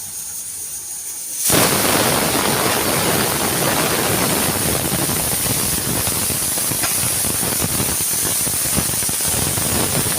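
Pressure cooker whistle going off about a second and a half in: a loud, steady hiss of steam venting under its weight, with a high shrill edge. It signals that the cooker has come up to pressure.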